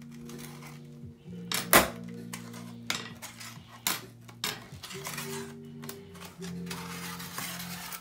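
Metal pry tool clicking and scraping against the aluminium bottom case of a MacBook Pro A1708 as the case is worked loose at its edges. The sharpest click comes a little under two seconds in, and a rasping scrape runs near the end, over steady background music.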